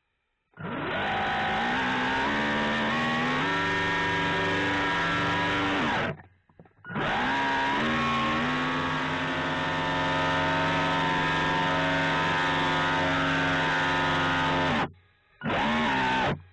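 RC boat's electric motor running with a steady whine, heard from a camera mounted on its deck. The pitch slides down and the motor cuts out briefly about six seconds in, then twice more near the end, starting up again each time as the throttle is released and reapplied.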